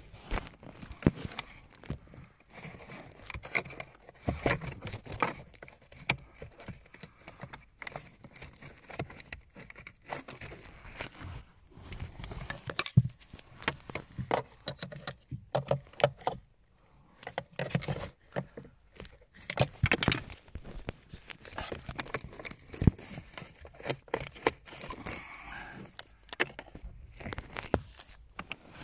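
Handling noises: irregular clicks, taps and rustling from gloved hands working among the plastic heater-box parts behind a car's dashboard, with the phone camera being knocked and moved about.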